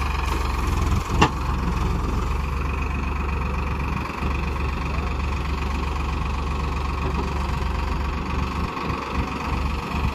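Farmtrac 45 tractor's diesel engine running steadily, with a single sharp click about a second in.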